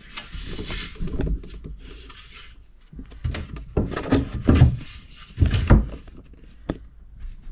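Wooden boards being handled and fitted: scraping and rubbing, with several knocks about halfway through and a sharp click near the end.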